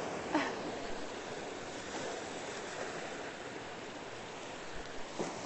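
Ocean surf washing up on a sandy beach, a steady wash of waves, with a brief swish shortly after the start and another near the end.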